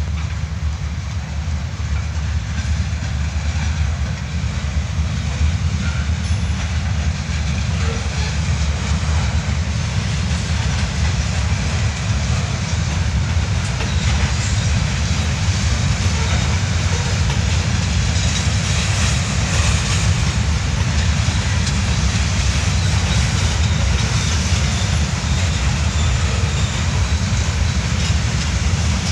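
Freight train's covered hopper cars rolling on steel rails as the train backs up, a steady low rumble with wheel and rail noise over it.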